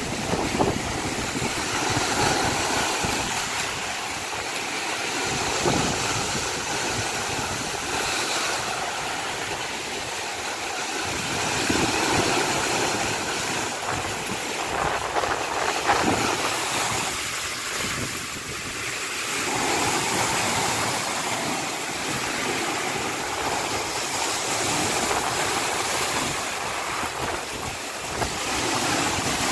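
Rough surf washing in and breaking against shoreline rocks and driftwood: a steady rushing wash of water that swells every few seconds, with a few sharper splashes.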